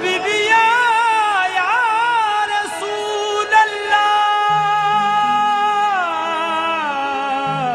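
Qawwali: a male singer holds long, wavering melismatic notes without words over harmonium accompaniment. About halfway in he sustains one steady note, then slides it down near the end.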